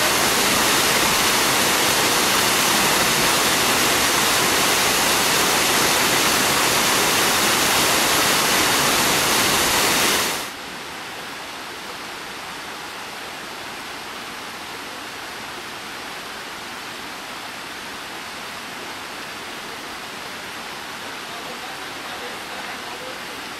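Rushing water of a rocky forest creek below a waterfall, a steady loud rush that drops abruptly to a quieter, even rush about ten seconds in.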